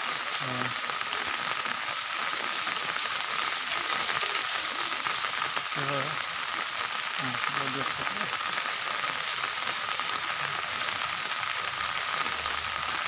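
Heavy rain beating steadily on an umbrella overhead, an even, unbroken hiss of drops.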